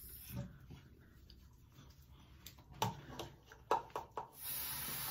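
Hands rubbing foaming cleanser over a face, with a few small clicks and smacks. Near the end a tap is turned on and water runs steadily.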